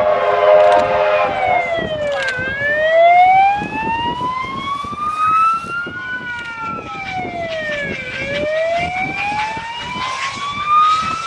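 A siren wails slowly up and down in pitch, each fall and rise taking about six seconds. Under it, J class steam locomotive J541 pulls away with its exhaust beating, and a steady whistle-like tone of several notes sounds for the first couple of seconds.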